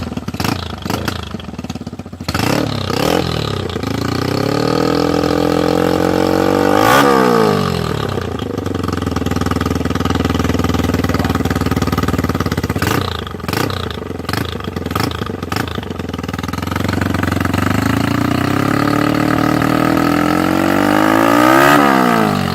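Honda Sonic motorcycle's single-cylinder four-stroke engine running loud through a new exhaust pipe, idling and blipped, then revved up twice, about 7 seconds in and again near the end, each time dropping back to idle.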